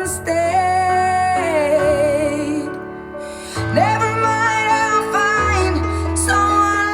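A pop song with a woman singing held notes over bass and accompaniment, played back through a smart speaker.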